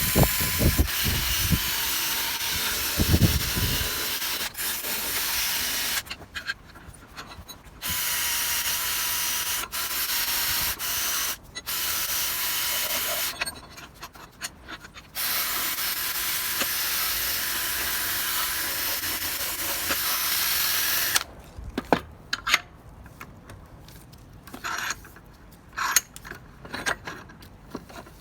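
A power tool running in several bursts of a few seconds each, with a steady whine over a loud hiss of abrasion on metal. In the last several seconds the tool is off, and there are light metallic clicks and knocks.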